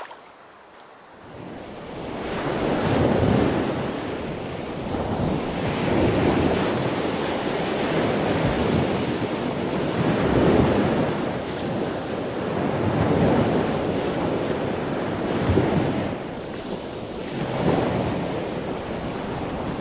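Ocean waves washing: a rushing sound that fades in over the first couple of seconds, then swells and ebbs every two to three seconds.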